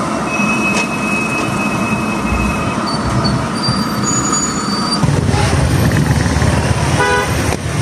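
Storm wind and rain with road traffic, heard from inside a car as a loud, steady rushing noise. A thin high whine runs for about two seconds near the start, and a short pitched tone sounds near the end.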